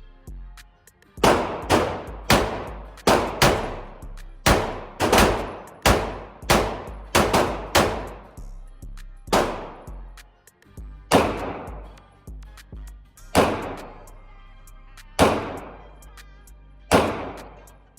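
Glock pistol in an MCK conversion kit being fired: a quick string of shots over the first eight seconds or so, then four single shots about two seconds apart, each with a ringing echo.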